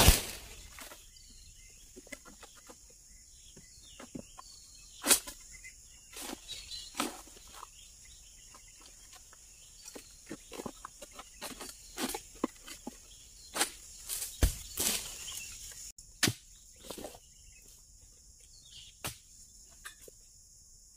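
Irregular knocks and scrapes of an egrek, a long-pole harvesting sickle, cutting at oil palm fronds and fruit bunches. There is a heavy thud about fourteen and a half seconds in as a cut piece lands, over a steady high insect drone.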